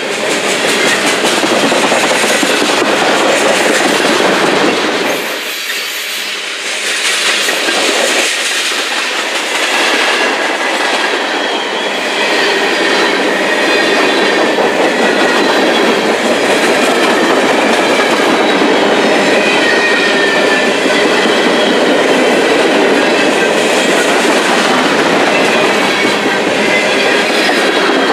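Freight train cars rolling past: steel wheels running over the rails in a steady loud rumble and clatter, easing briefly about five seconds in before picking up again.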